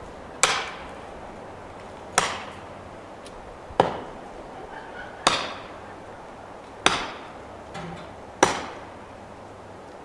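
Steady blows driving a felling wedge into the back cut of a red fir snag, six sharp strikes about a second and a half apart, each ringing briefly; the chainsaw is off while the tree is wedged over.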